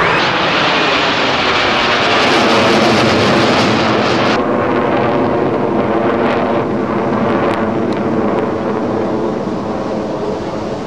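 Jet noise from a formation of six US Navy Blue Angels F/A-18 Hornets, with General Electric F404 turbofans, flying past overhead as a loud, steady roar. About four seconds in, the hissing top of the sound drops away, leaving a duller rumble that slowly fades as the jets draw off.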